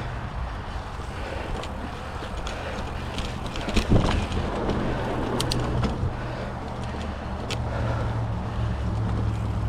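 2007 Cannondale Rush mountain bike ridden along a dirt trail: a steady rumble of tyres and wind on the microphone, with a few sharp clicks and rattles from the bike over roots and bumps.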